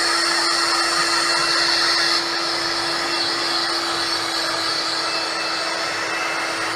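Electric heat gun blowing hot air, curing freshly printed puff ink on a t-shirt: a steady airy hiss with a constant hum, easing slightly in level about two seconds in.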